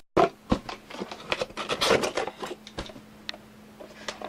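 Packaging being handled as the tripod is unpacked: a run of rustles, scrapes and clicks, busiest in the first three seconds and thinning out after, over a faint steady low hum.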